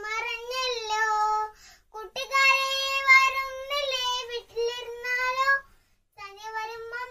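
A young girl singing unaccompanied in a high child's voice: long held, gliding notes in phrases, broken by a short breath about a second and a half in and another near six seconds.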